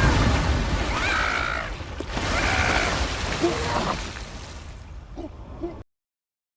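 Film sound effect: a young giant ape's short high-pitched cries, about a second in and again near the middle, over a loud, heavy rumble with crashes that fades and then cuts off abruptly.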